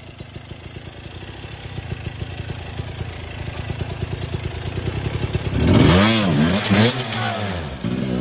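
KTM enduro motorcycle engine running at low revs under load, getting louder, then revved hard twice about six seconds in, the pitch rising and falling each time.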